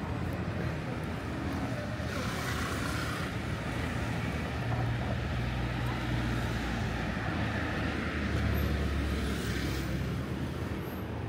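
Road traffic passing: motor vehicles going by with tyre hiss and a low engine hum, swelling through the middle and loudest about three-quarters of the way through.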